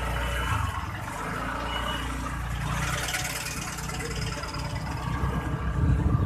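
Road traffic in a slow jam: engines of queued cars and motorcycles idling and creeping, with a low engine rumble close by that grows louder near the end.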